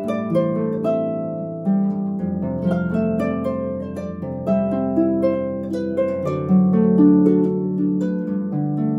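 Solo concert pedal harp being plucked, playing a pop-song arrangement: a melody of plucked notes over low bass notes that are left to ring on.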